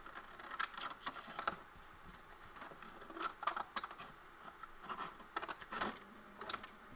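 Scissors cutting paper, with irregular snips and crackles and paper rustling in between.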